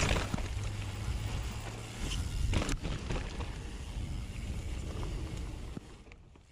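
Mountain bike ridden down a trail, heard from a mounted action camera: a steady rumble of wind on the microphone mixed with tyre noise and rattles and knocks from the bike. There is one sharp knock about a third of the way in, and the sound fades out near the end.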